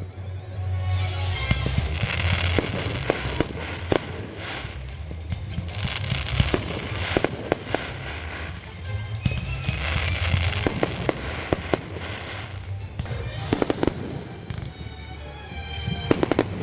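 Fireworks going off: many sharp bangs and pops throughout, with stretches of dense crackling.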